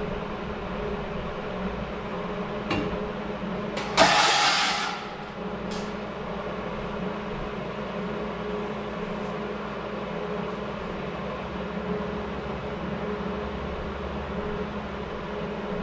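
A steady low mechanical hum, with one loud hiss lasting about a second about four seconds in and a few faint clicks.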